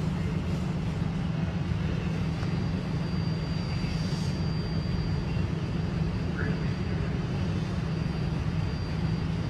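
A steady low engine rumble, with a faint thin high tone from about two seconds in.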